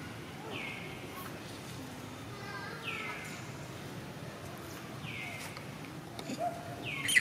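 An animal's high call that falls steeply in pitch and levels off, repeated four times about two seconds apart.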